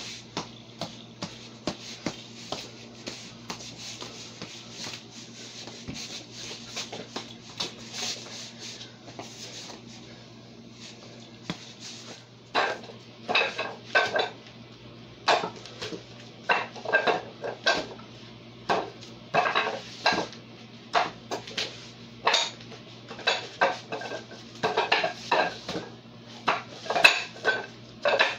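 Wing Chun wooden dummy (mook jong) being struck on its wooden arms and trunk by hands and forearms: rapid, irregular sharp wooden clacks and knocks, faint at first and much louder from about halfway through. A steady low hum runs underneath.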